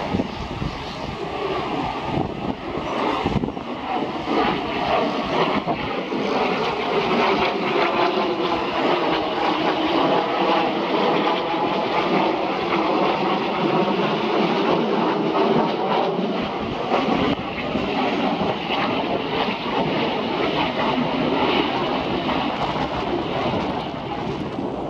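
Jet noise from Kawasaki T-4 jet trainers flying overhead, a continuous rushing roar that builds over the first several seconds and then holds steady. Wind buffets the microphone in the first few seconds.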